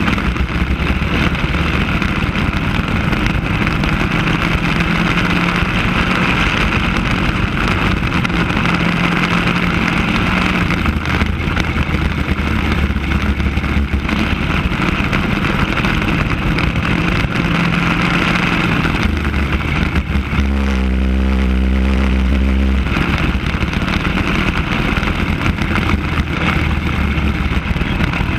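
Racing kart engine running hard on track, its revs rising and falling through the corners. About twenty seconds in it drops to a steady, lower note for a couple of seconds, then picks up again.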